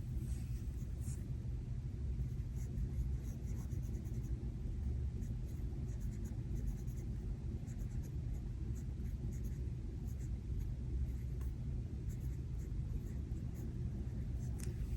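Pen or marker scratching on planner paper in short writing strokes, over a steady low rumble of thunderstorm ambience.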